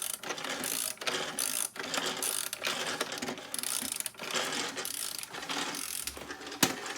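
Kongsuni toy drum washing machine spinning its drum on the drum-clean cycle: a steady rattle of small motor and plastic gears, with scattered clicks.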